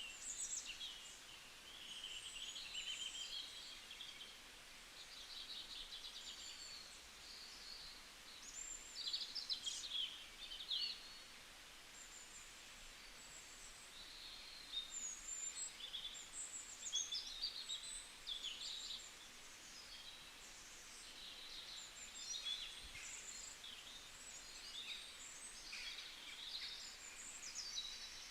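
Forest ambience: several songbirds chirping, trilling and whistling, overlapping one another, over a faint steady hiss.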